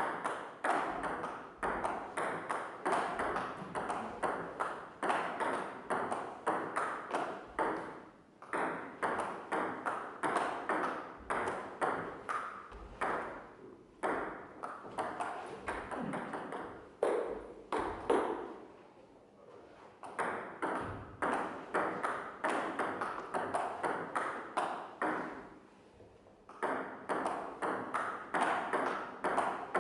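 Table tennis rally: a ball clicking back and forth off paddles and table, about two to three hits a second, with three short breaks between rallies.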